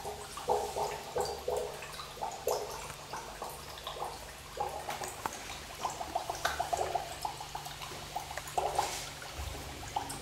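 Water gurgling and bubbling in fits and starts, with small drips and clicks: carbon dioxide from the vinegar and baking-soda reaction is bubbling out through the homemade boat's straw into the bath water.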